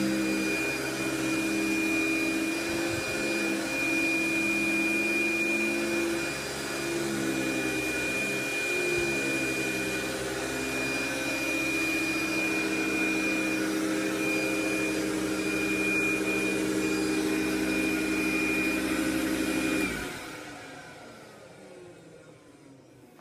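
1981 Eureka Rotomatic Power Team canister vacuum cleaner, model 1743A, running steadily with a high whine. It is switched off about 20 seconds in and winds down.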